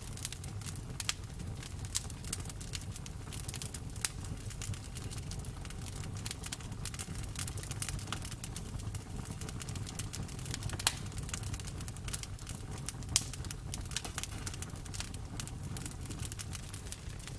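Campfire burning, with a steady low rumble and many irregular sharp crackles and a few louder pops from the burning wood.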